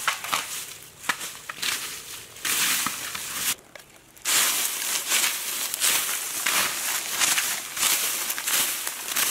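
Dry fallen bamboo leaves crackling and rustling as they are trampled and handled, with a brief quiet break a little after three and a half seconds in.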